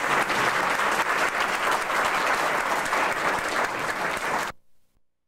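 A large audience applauding, a dense patter of many hands clapping, which cuts off suddenly about four and a half seconds in.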